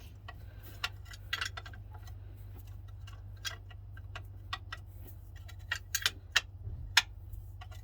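Hand tools working on a car engine: irregular sharp metallic clicks, a few a second and busier in the second half, over a steady low hum.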